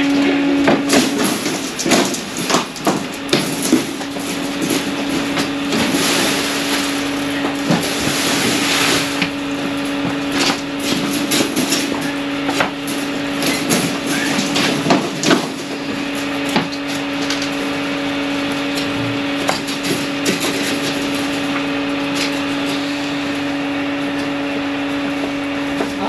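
Irregular knocks and clatter of loaded wheelbarrows being run over boards laid on the slab, under a steady machine hum.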